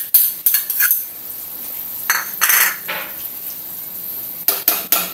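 Metal spoon clinking and scraping against a non-stick frying pan, stirring sweet corn into chicken simmering in stock. There is a quick run of sharp clicks at the start, a longer scrape about two seconds in, and a few more clicks near the end.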